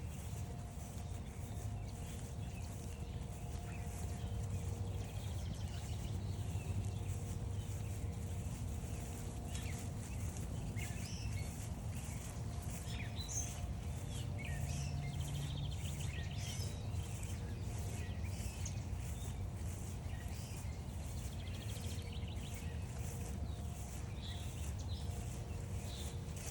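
Several wild songbirds chirping and calling in short, scattered notes, busiest in the middle, over a steady low rumble of outdoor background noise.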